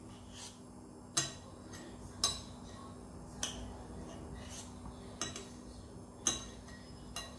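About six scattered sharp clicks and ticks from a pan of used cooking oil heating on the stove, the loudest about a second in and again a second later, over a faint steady hum.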